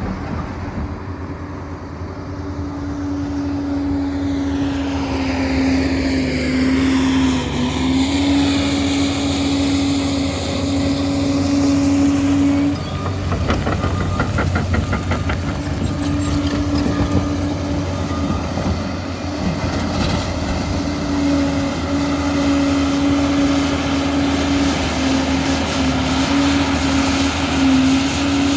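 Liebherr PR 746 crawler dozer working, its engine and drive running loud and steady with a constant whine that drops out for a few seconds around the middle.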